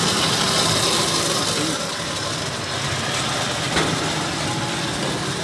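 Steady mechanical hum of a running motor, a little quieter from about two seconds in, with one short knock near four seconds.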